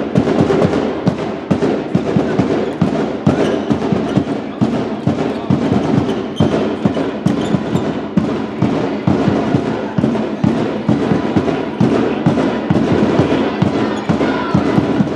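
Handball game in a sports hall: a rapid, irregular run of sharp knocks and bangs, several a second, over a steady din of voices.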